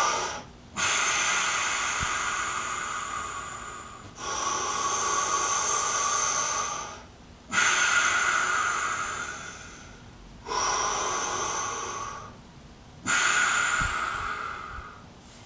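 A man's slow, deep belly breathing close to the microphone: about five long breaths, each two to three seconds, separated by short pauses.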